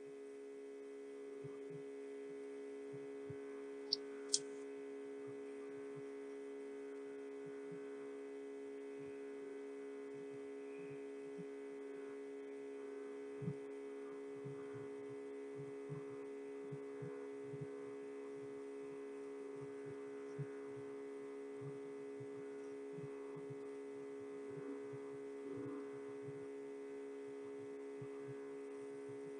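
Faint, steady electrical hum made of several steady tones. Two small clicks come about four seconds in, and faint low knocks are scattered throughout.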